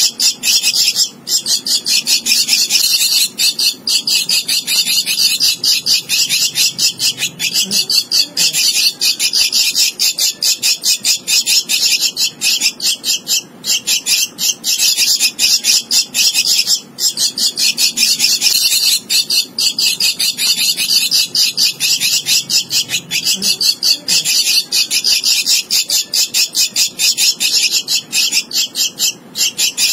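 Javan myna nestling begging for food: a fast, nearly unbroken string of short high-pitched calls, many a second, with a few brief breaks.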